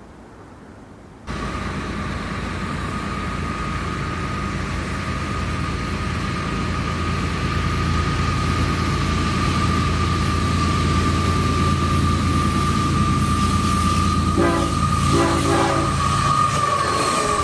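Diesel freight train running past, the locomotive engines giving a steady low rumble under a steady high-pitched squeal. A few short horn notes sound near the end.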